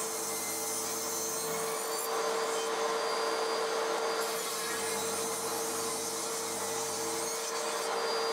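DeWalt DW745 table saw running and ripping a length of pine 3x2 along the fence, squaring it and taking off the rounded edges. The motor holds a steady whine under the even noise of the cut.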